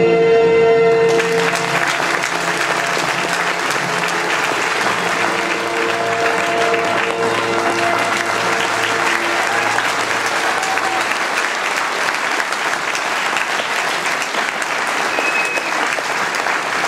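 Audience applauding, breaking out abruptly about a second in over the last held chord of the performance music. The chord fades away under the clapping about two-thirds of the way through.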